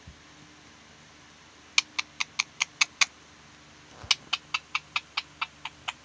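Green parakeet giving short, sharp shrieking calls in two quick runs of about four to five a second: about seven calls starting near two seconds in, then after a one-second pause about nine more.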